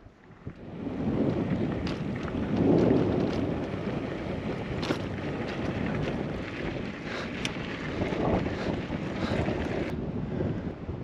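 Wind buffeting the microphone, rising about half a second in and holding steady, with scattered sharp clicks through it.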